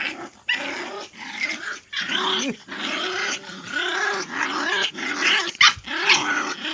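Dogs fighting fiercely: continuous rough snarling and growling, broken by short rising-and-falling yelping cries about every half second.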